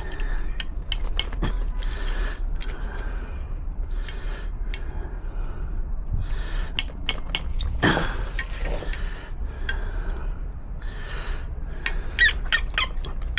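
Hand-tool work on a garage door defender as its bolts are fitted with an Allen key: scattered short metal clicks and clinks with stretches of scraping and the odd squeak. Near the end, a few short bird calls, like a chicken clucking, come in.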